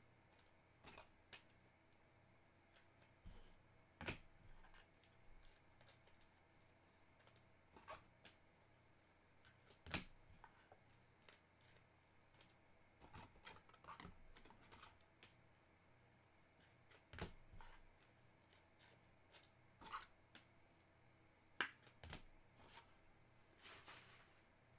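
Faint, scattered clicks and short rustles of trading cards and their packaging being handled, with a softer crinkling rustle near the end.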